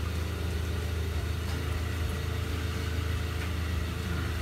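Steady low mechanical hum that holds level throughout.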